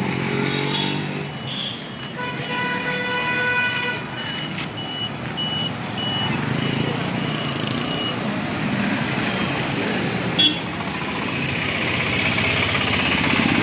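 Busy street traffic with vehicle engines running; a vehicle horn sounds for about two seconds, followed by a run of short high-pitched beeps. A single sharp click comes near the end.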